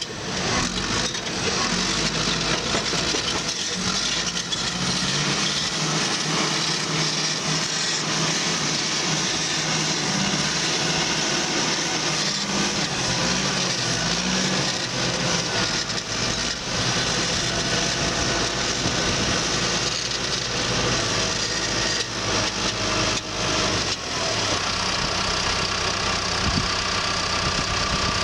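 Bulldozer's diesel engine running steadily under work, with a dense mechanical clatter and a few sharp clanks scattered through.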